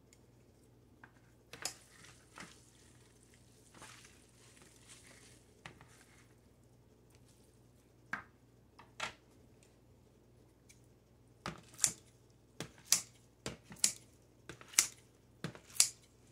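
Kitchen scissors snipping through soaked sweet potato glass noodles in a plastic bowl: a few scattered snips and soft handling sounds at first, then about ten sharp snips in quick pairs over the last five seconds.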